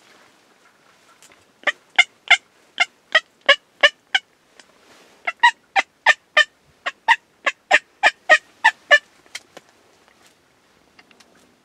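Turkey yelping: two runs of short, evenly spaced raspy yelps, about three a second, the first of about eight notes and the second, starting a second later, of about fifteen.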